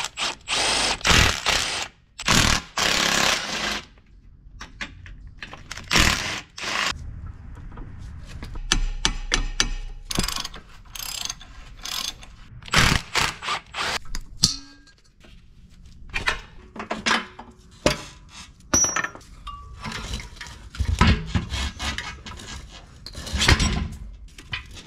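Cordless Milwaukee power tool running in two bursts of about a second each, spinning a nut off the sway bar end link. This is followed by a long run of clicks, knocks and metal clanks from hand wrenches and suspension parts being worked, with a brief quick series of even clicks about nine seconds in.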